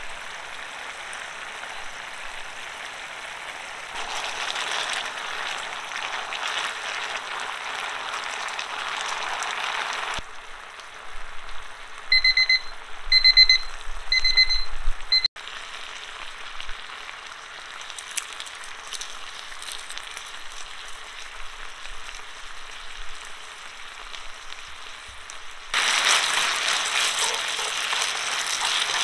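Spaghetti and sliced garlic bubbling in water and olive oil in a frying pan, a steady hiss. About twelve seconds in a timer alarm beeps in four short bursts, marking the end of the nine-minute boil; after it the pasta sizzles in the pan as it is fried, louder near the end as it is stirred.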